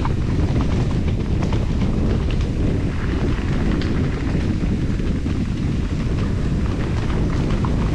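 Mountain bike riding fast over a rocky trail, the frame and chain rattling and clicking over the rocks, under a steady rumble of wind on the microphone.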